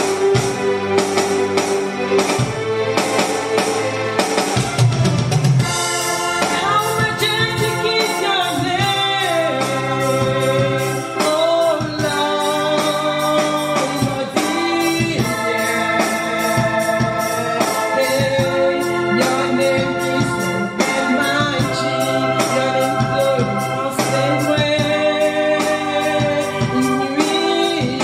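A woman singing into a microphone, accompanied by a Yamaha S970 arranger keyboard playing chords over a steady programmed beat. The voice comes in about six seconds in, after a short keyboard introduction.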